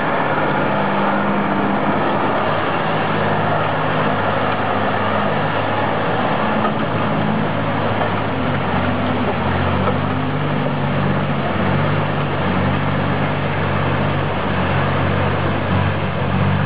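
Heavy engine of a loaded Ural 6x6 log truck running hard under load as it drives through deep mud, a steady low drone whose note shifts lower about halfway through.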